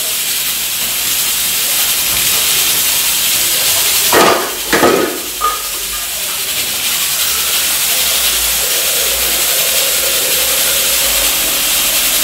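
Steady sizzling hiss of food frying in a pan. About four seconds in, a louder splashing rush of water runs briefly as a pot is filled at the kitchen tap.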